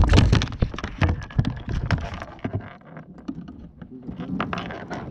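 Irregular splashing and knocking against a kayak while a hooked channel catfish is hauled in, loudest in the first half-second and thinning out after.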